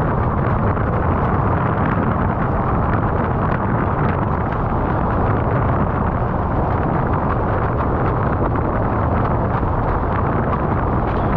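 Loud, steady wind rumble on the microphone of a camera on a sailing windsurf rig, mixed with water rushing under the board.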